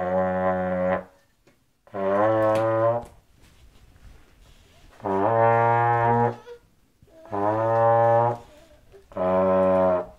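Trombone played by a child: five separate held notes of about a second each, with short gaps between, at a few different pitches as the slide is moved between positions.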